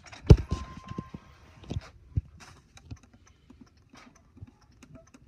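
Handling noise: scattered clicks, taps and knocks, with a thump about a third of a second in and a short steady beep near the first second.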